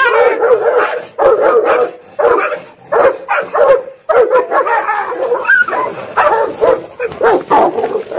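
Dogs fighting, a Rottweiler and German Shepherds, snarling, growling and barking in loud, rapid bursts with a few brief breaks.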